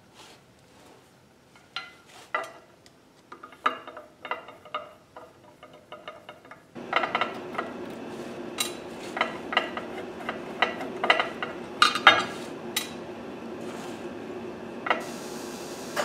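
Screwdriver and small carburetor screws and parts clicking and clinking against a sheet-metal benchtop as a chop-saw carburetor is taken apart, a quick irregular series of sharp metallic ticks. About seven seconds in, a steady hum starts underneath.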